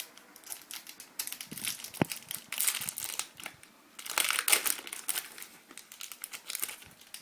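Plastic-foil trading card pack wrapper crinkling as it is handled and opened, loudest in two spells in the middle, with a single sharp click about two seconds in.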